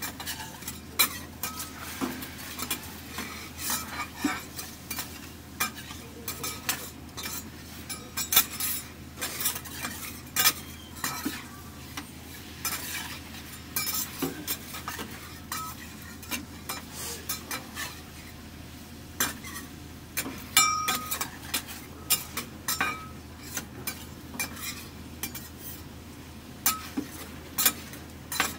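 Horumon cooking in a pan. Metal utensils clink and scrape irregularly against the pan as the pieces are stirred, over a steady sizzle.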